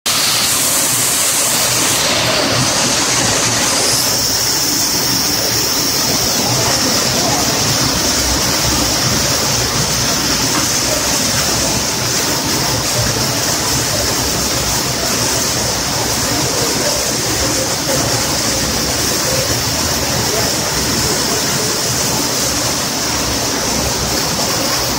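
Hail and heavy rain pelting pavement and parked cars: a loud, steady, dense rush of noise that does not let up.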